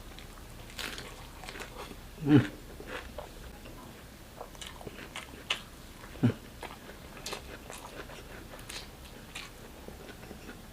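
Close-miked chewing of a mouthful of grilled chicken, rice and vegetables: wet mouth clicks and smacks, with a louder low mouth sound about two seconds in and another about six seconds in.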